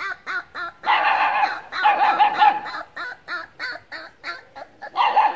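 A dog barking rapidly, short sharp barks at about four a second. A little after a second in, and again near the end, the barks run together into dense stretches.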